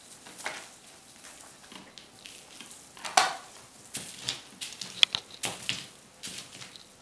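Kittens playing with a feather-and-tinsel wand toy: scattered light rustles, taps and clicks of the toy and small paws on the play mat. There is a sharper clack about three seconds in and another about five seconds in.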